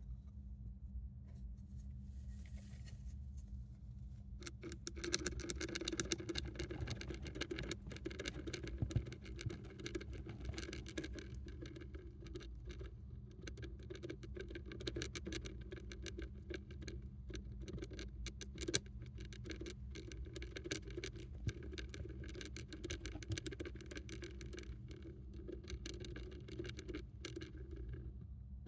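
A hamster drinking water: a fast, steady run of small licking clicks that starts about five seconds in and keeps going.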